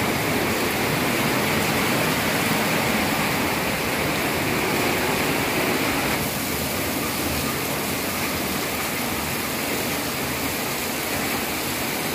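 Steady rain falling on a wet concrete yard, an even hiss that drops slightly about halfway through.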